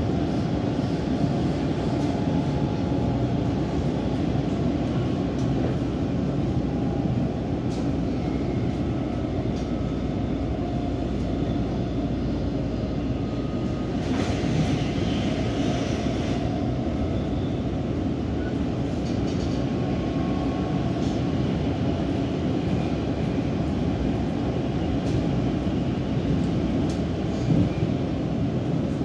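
Helsinki metro train running at speed, heard from inside the carriage: a steady low rumble of wheels on the rails, with a brief brighter hiss about halfway through.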